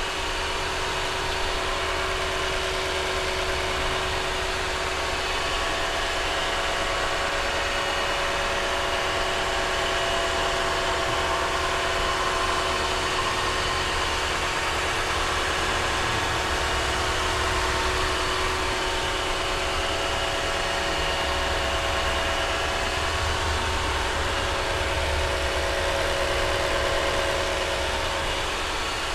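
Lexus GX460's 4.6-litre V8 idling steadily, heard up close in the engine bay, running so fluid circulates through a newly installed transmission cooler for a leak check.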